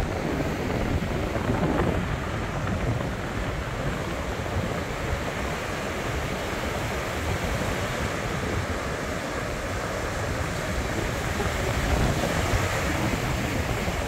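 Ocean surf breaking and washing on a sandy beach, a steady rushing noise, with wind buffeting the microphone.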